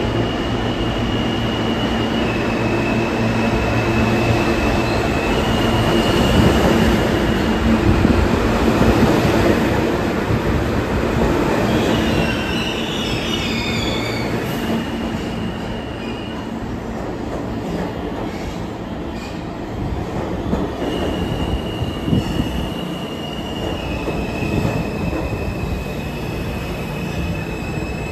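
R160A-1 subway train running on the rails: a steady rumble with a high steady tone that switches back and forth between two close pitches, and a short stretch of wheel squeal about halfway through.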